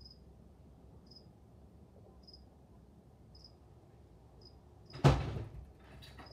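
A faint, short, high-pitched chirp repeating about once a second. About five seconds in comes a loud knock or thump, then a softer knock about a second later.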